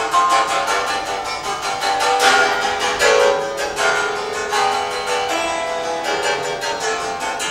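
Long fretted zithers laid flat, their strings struck rapidly with thin sticks while the other hand frets them, giving a fast, dense stream of bright, ringing plucked-string notes.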